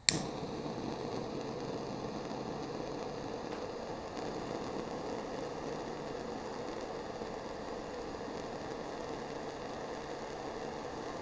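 Handheld lighter clicked on, then its flame hisses steadily while held to the paper tip of a Senko Hanabi sparkler to light it. The hiss cuts off suddenly at the end as the lighter is shut off.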